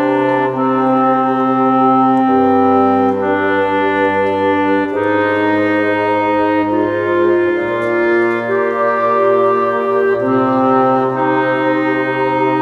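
Music of slow, held chords that change every second or two, with no beat.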